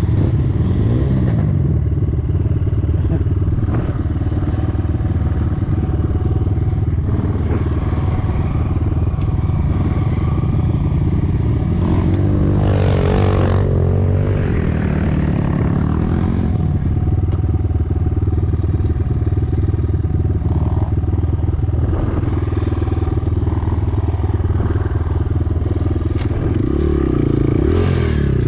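Enduro motorcycle engine running steadily while riding, with clattering from the bike over rough ground. The revs rise and fall about halfway through and again near the end.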